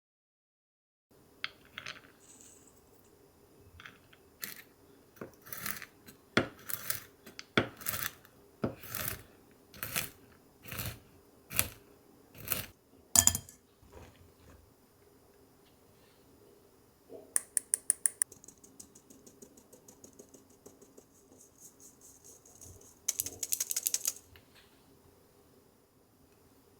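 Metal mesh sieve being tapped while sifting flour and cocoa powder into a bowl: a run of sharp taps about one every 0.7 seconds, then two short bursts of rapid rattling clicks.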